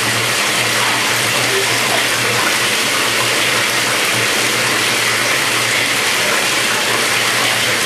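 Bathtub tap running, water pouring steadily into the filled tub, with a steady low hum beneath it.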